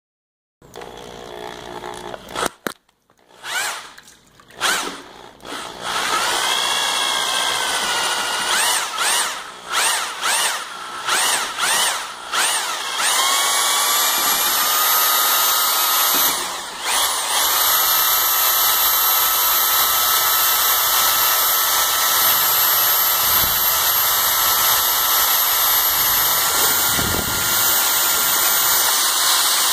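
A new L5 electric paddle mixer churning joint compound in a plastic bucket. For the first dozen seconds its motor is triggered in short bursts, the pitch rising and falling as it speeds up and slows. Then it runs steadily with a high whine, dipping briefly once and stepping up a little in pitch near the end.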